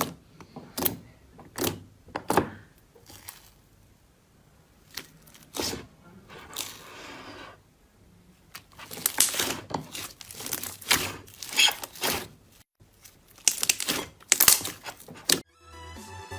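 Slime being pressed and handled, with sharp popping clicks about once a second, then denser bursts of crackling. Electronic music starts near the end.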